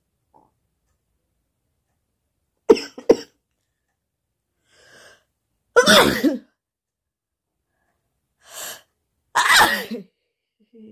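A woman sneezing in a series: two sharp sneezes in quick succession about three seconds in, then two louder, longer sneezes around six and nine and a half seconds in, each preceded by a fainter breath.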